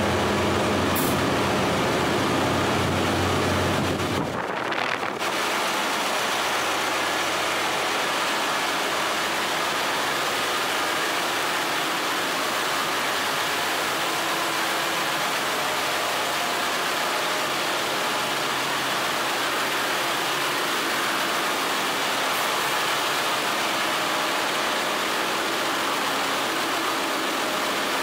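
Ship's engine-room machinery running: a loud, dense, steady mechanical noise. A deep hum with steady tones underneath it drops away about four seconds in.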